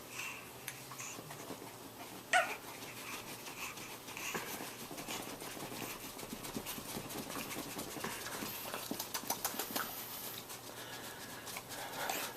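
Mouth noises: a sharp tongue click about two seconds in, then a long run of rapid clicking and breathy sputtering.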